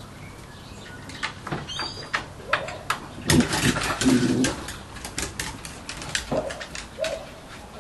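A dog vocalizing softly: a few short, low calls, with a louder, rougher stretch a little past the middle, and scattered clicks and taps.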